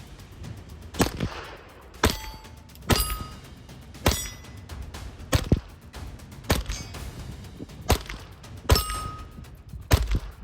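Hammerli Forge H1 1911 .22 LR pistol firing CCI Standard Velocity 40-grain rounds, about nine sharp shots roughly a second apart, several followed by the brief ring of hit steel targets.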